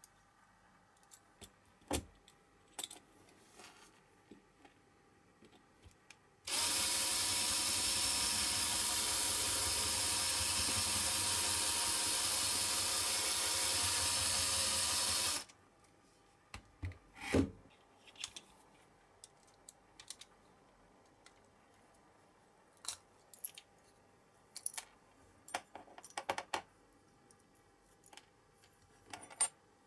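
Small electric drill running steadily for about nine seconds in the middle, drilling out the baseplate rivet of a Lesney Matchbox diecast car to take it apart. Before and after it, scattered small clicks and knocks of the metal parts being handled.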